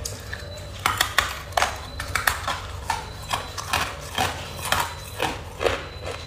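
Hard clear ice being bitten and chewed: a run of sharp, crackling crunches between the teeth, starting about a second in and coming roughly twice a second.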